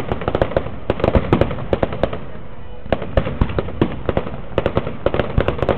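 Fireworks display: rapid overlapping bangs and crackles of aerial shells, easing for about a second partway through, then building again.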